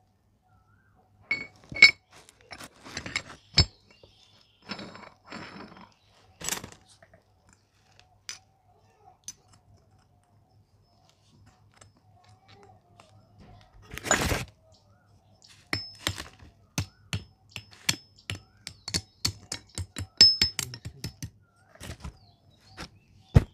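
Steel tractor differential parts (bevel pinion gears, thrust washers and the spider cross) clinking and knocking together as they are handled and fitted, in irregular clicks that come thick and fast in the second half. A longer, louder noise sounds about halfway through, and a sharp knock comes near the end.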